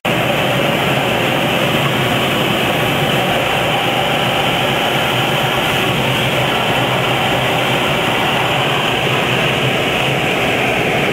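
Steady rushing of wind over a camera carried aboard a radio-controlled model airplane in flight, an even noise with no clear pitch.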